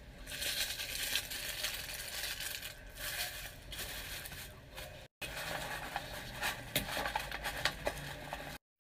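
Paper and tissue rustling and crinkling as gloved hands handle shredded paper filler and wrapping inside a cardboard box, with small taps and clicks. The sound cuts out completely for a moment about five seconds in and again near the end.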